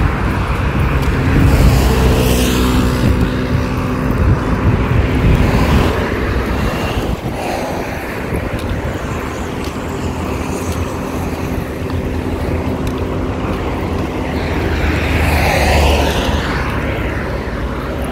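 Road traffic: cars and SUVs driving past on a multi-lane road, engine hum and tyre noise rising and fading as each goes by, loudest a few seconds in and again near the end.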